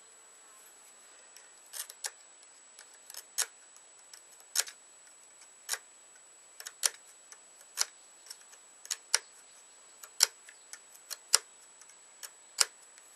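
Sharp, irregular clicks and ticks of a steel scribe on a metal knife part as a mark is scored into it, about twenty strikes at uneven intervals, some much louder than others.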